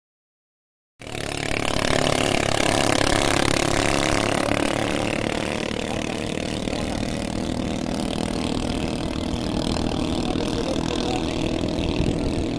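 Engines of racing bangka boats running at high speed: a steady, dense engine drone that cuts in suddenly about a second in.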